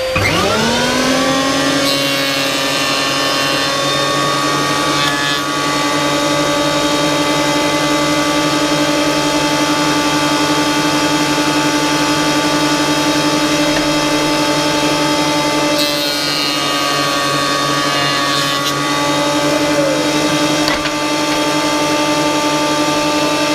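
Einhell TC-SP 204 planer thicknesser starting up, its whine rising over the first second, then running steadily at speed, with a dust extractor running alongside.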